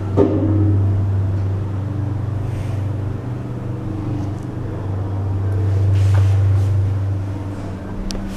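Low, steady drone of a road vehicle on the move, swelling in loudness about six seconds in, with one short knock right at the start.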